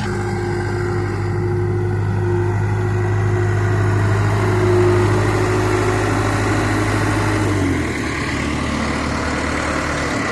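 Vehicle engine running steadily at a raised speed, then dropping to a lower speed about three-quarters of the way through.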